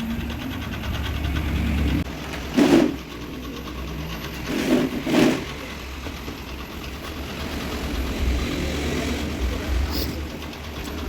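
A robot vacuum cleaner making a steady low mechanical hum, with a few sharp knocks and clatters: one about two and a half seconds in and two close together about five seconds in.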